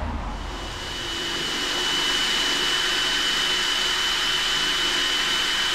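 Cordless drill running at a steady high whine as it drills right through a clamped metal angle bracket, building up to full speed over the first second or two.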